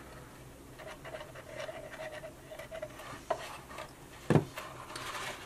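Cardstock box being handled: quiet rubbing and rustling of paper against fingers, with a small click a little past three seconds in and a sharper, louder knock about a second later.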